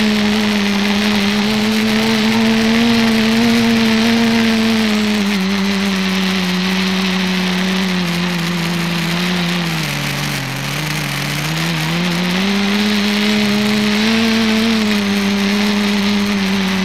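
Electric motors and propellers of a small multicopter, heard from its onboard camera: a steady buzzing whine over a constant hiss. The pitch sinks about ten seconds in and climbs back a couple of seconds later as the throttle is eased and opened again.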